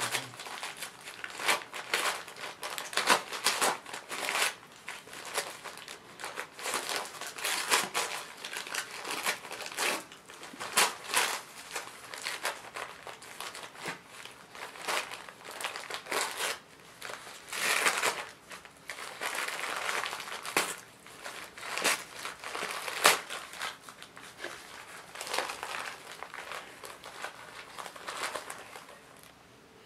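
Gift wrapping paper crinkling and tearing in irregular bursts as a Jack Russell terrier puppy bites and pulls at a wrapped present.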